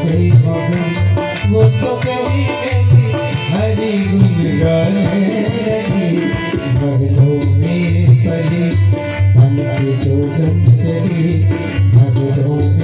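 Tabla and harmonium playing a bhajan over a PA system, with the tabla keeping a steady, repeating rhythm under the harmonium's held notes.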